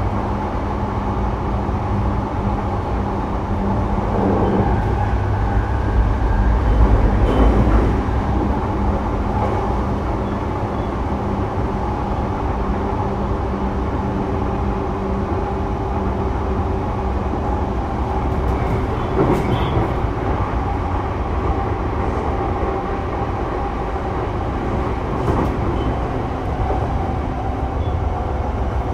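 Sotetsu 12000 series electric train running between stations, heard from inside a passenger car: a steady rumble of wheels on rail with a low hum, and a few single knocks as the wheels pass over rail joints.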